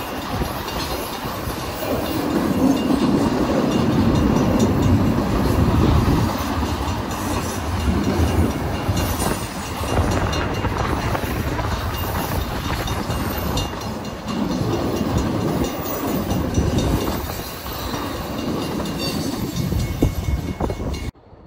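Double-stack intermodal freight train passing, its well cars rumbling and wheels clacking over the rails, rising and falling in surges as the cars go by. The sound cuts off suddenly near the end.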